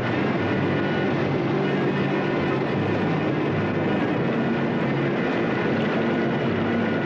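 Whitewater rapids rushing, a steady roar of churning water.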